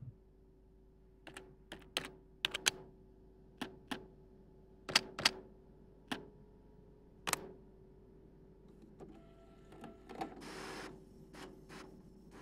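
Typing on a computer keyboard: separate key clicks at an uneven pace, one to three a second, over a faint steady hum. A soft hiss swells briefly about ten seconds in.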